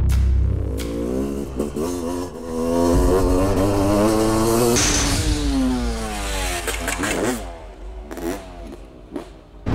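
Motocross bike engine revving hard and climbing through a few gear changes as it accelerates. About five seconds in the engine note drops away and fades.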